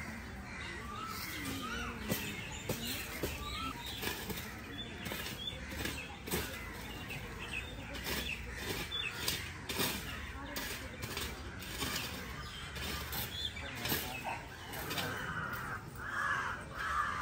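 Crows cawing, loudest near the end, over faint voices, with repeated short scrapes and knocks of shovels working a bed of embers in sand.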